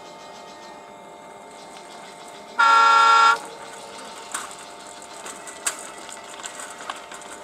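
Diesel locomotive's horn giving one short, loud blast about two and a half seconds in as the train approaches.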